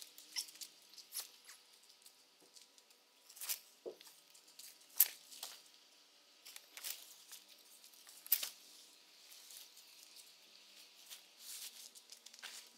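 Tent being taken down and packed: faint rustling with scattered sharp clicks and scrapes, the sharpest about five and eight seconds in.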